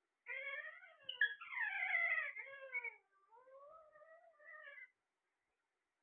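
Alexandrine parakeets calling: a string of overlapping calls that slide up and down in pitch. They are loudest between about one and three seconds in; softer calls follow and stop about five seconds in.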